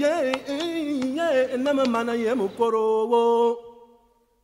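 A solo voice singing a melody in the sound track, with bending, wavering notes over a faint low accompaniment. It ends on long held notes and breaks off about three and a half seconds in.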